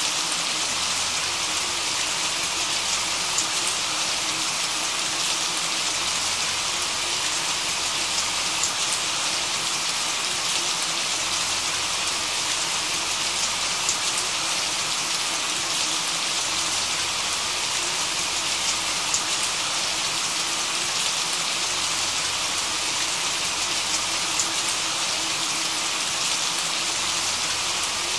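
Steady rain: an even hiss with faint, scattered drop ticks.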